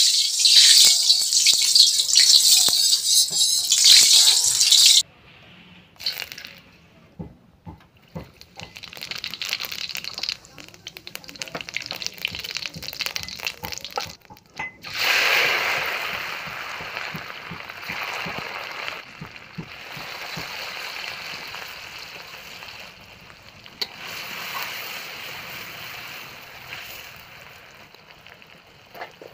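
Hot oil sizzling in a steel wok: a loud hiss for the first five seconds that cuts off suddenly, then lighter crackling and popping. About fifteen seconds in, seeds go into the oil and a fresh burst of sizzling starts, fading slowly.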